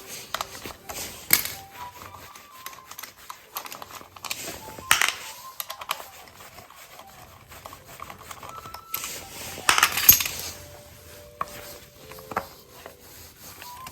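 Irregular metallic clicks, taps and clattering of hand tools and small parts being handled, with louder clatters about five and ten seconds in. Short, stepped tones sound faintly beneath them.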